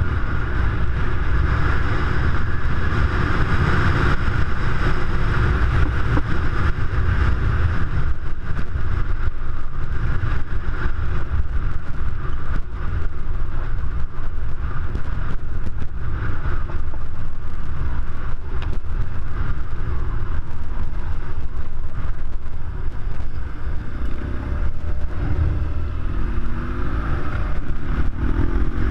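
BMW R1200GS Adventure's boxer-twin engine running under way, heavily overlaid by wind rumble on the microphone, with the revs rising and falling near the end.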